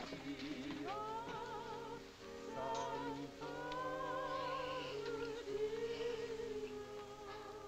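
Background film music: a slow melody of held notes with a strong vibrato over a steady low note, fading near the end.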